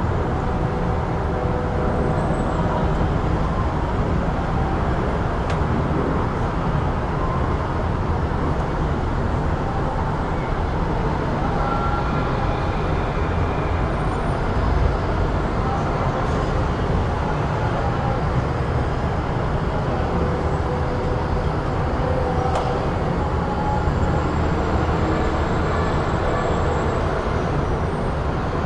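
Busy city street ambience: a steady low rumble of road traffic, with short faint tones and a few sharp ticks here and there.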